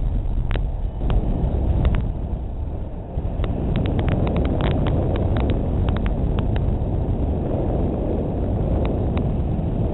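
Steady rush of airflow buffeting the microphone in flight, with scattered sharp clicks and ticks, thickest from about three and a half to six and a half seconds in.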